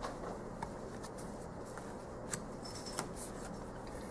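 Tarot cards being handled: a few faint clicks and light taps as one card is put away and the next is picked up, over a steady low room hum.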